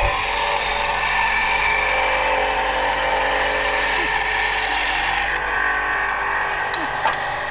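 EzyLif VBS8 8-inch band saw with a 350 W induction motor running while its blade cuts through a wooden board: a steady whirring hiss. The higher hiss eases about five seconds in, and a couple of light clicks come near the end.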